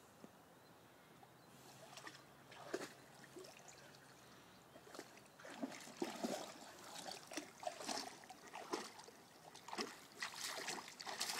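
A dog wading in shallow river water: irregular sloshing and splashing, sparse at first and busier from about halfway in.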